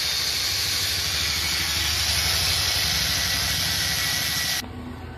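Handheld angle grinder with an abrasive cut-off disc cutting through iron angle bar: a loud, steady, high-pitched hiss over the motor's hum, which cuts off abruptly near the end.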